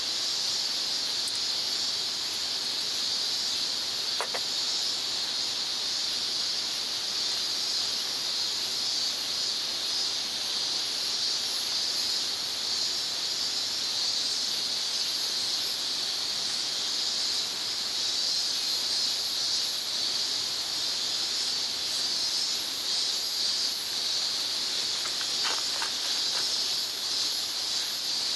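Steady, unbroken high-pitched chorus of insects singing, with a couple of faint clicks about four seconds in and near the end.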